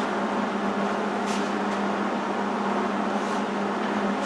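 Steady hum of a running fan, with a few faint light clicks about a second in and again near three seconds.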